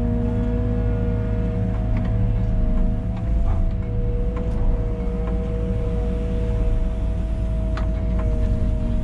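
Liebherr A 914 Compact wheeled excavator heard from inside the cab: engine and hydraulics running under load, with a deep rumble and a steady two-note whine that wavers slightly as the machine swings. A few sharp clicks and knocks stand out.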